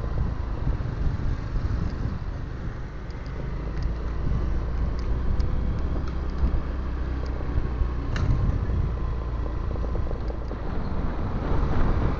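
Steady low rumble of wind and road noise picked up by a camera mounted on a moving motor scooter, with the scooter's engine running underneath. A brief click about eight seconds in.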